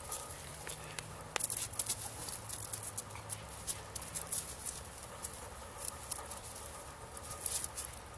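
Pomeranian puppy biting and crunching snow off a snowy evergreen shrub, the branches rustling as it paws at them: an irregular run of crisp crackles.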